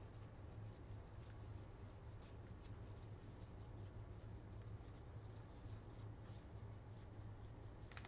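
Faint, irregular soft clicks and rustles of trading cards being slid one behind another through a stack in the hands, over a low steady hum.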